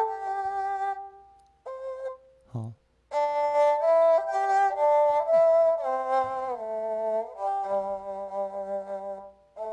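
Electronic keyboard playing an erhu-imitating voice: a melodic phrase of held notes with vibrato and sliding pitch bends between them, after a short pause about two seconds in. From about three seconds in, lower notes are held underneath the melody.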